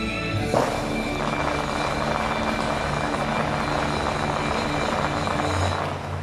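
Musical fountain's massed water jets shooting up together: a sudden steady rush of water and spray starts about half a second in and eases off near the end, with the show's music continuing underneath.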